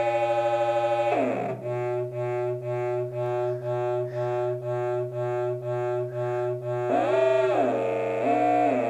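Electronic test tones from a phone oscillator app, two sine frequencies mixed and played through a small speaker, which buzzes with overtones. About a second in the pitch falls, then the mix pulses steadily about two and a half times a second. From about seven seconds the tones sweep up and down as the frequencies are retuned to new values.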